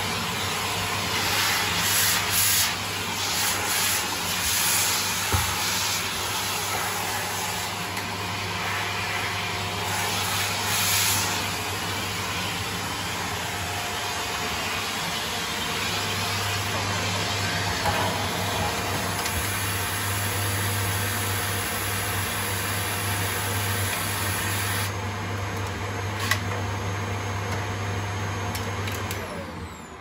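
Shark upright vacuum cleaner running steadily while its hose and wand suck along the stair edges. Just before the end the motor is cut and starts to wind down with a falling whine.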